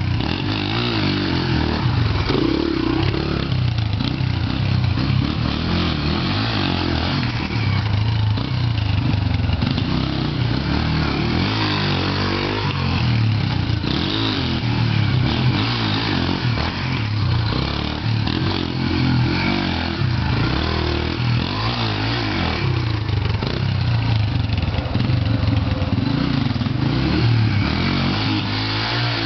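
Small dirt bike engine revving up and down as the bike rides laps of a dirt track, its pitch rising and falling again and again.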